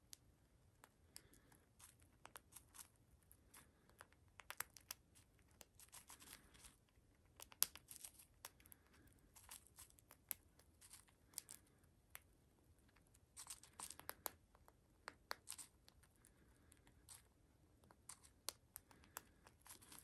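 Cockatiel eating from a seed mix, its beak cracking and husking seeds in quick, irregular crisp clicks and crunches that come in clusters, with seeds rustling in the plastic dish. One sharper crack stands out a little before the midpoint.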